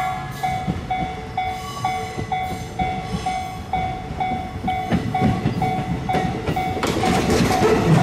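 Japanese railroad crossing alarm ringing its bell-like tone about twice a second as an electric commuter train approaches. The train's rumble builds from about halfway through, and the rush of the train arriving at the crossing takes over near the end.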